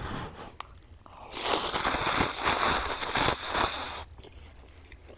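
A person slurping instant ramen noodles from a bowl: one long loud slurp starting about a second in and lasting nearly three seconds.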